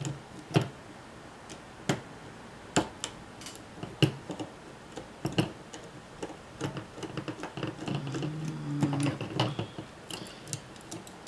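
Small plastic and metal parts of a camcorder tape mechanism clicking and tapping as it is taken apart by hand with a screwdriver: scattered sharp clicks, about one a second at first, then quicker small ticks. A short low hum comes about eight seconds in.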